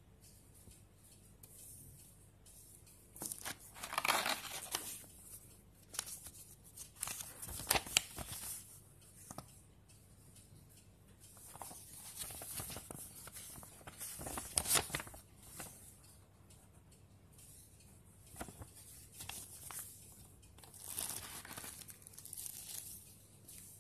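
Packaging being handled: a paper leaflet and the remote's plastic sleeve rustling and crinkling in irregular bursts, with short quiet gaps between them.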